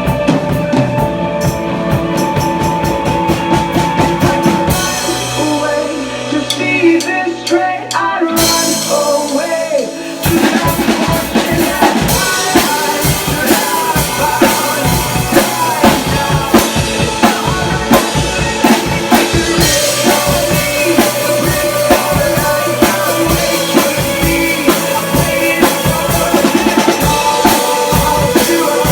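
Drum kit played along with a recorded rock song: steady beats with snare and cymbal hits. About five seconds in it eases into a softer passage over a held bass note, then full drumming comes back about ten seconds in.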